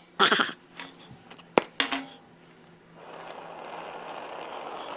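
Sharp metallic clinks and taps of steel parts being struck and handled, several in the first two seconds, the loudest right at the start. About three seconds in, a steady faint rushing noise starts and carries on.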